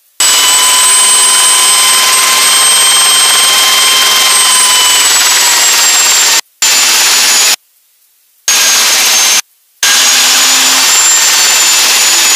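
Helicycle's Solar T62 gas-turbine engine running with its rotor turning, heard loud from inside the cockpit: a high turbine whine over a steady rush of noise. The whine rises slightly about two seconds in and sags again near five seconds. The sound cuts out abruptly to silence three times in the second half.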